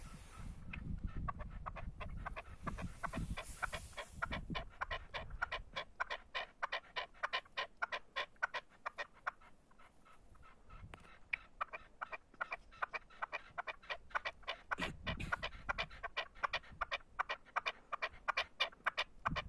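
Male red-legged partridge calling: a long run of short, clipped notes at about five a second, growing louder toward the end. A low rumble underlies it near the start and again about 15 seconds in.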